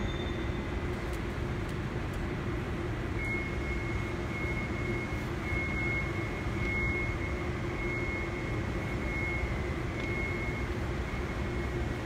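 Steady hum and rush of large industrial ventilation fans, with a thin steady high whine over it.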